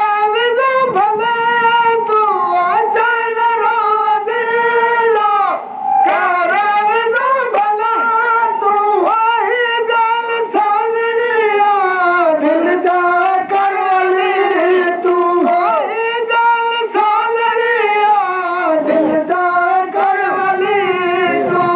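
A solo high voice singing a Sindhi molood, a devotional song in praise of the Prophet, in long held, wavering notes with short breaths between phrases.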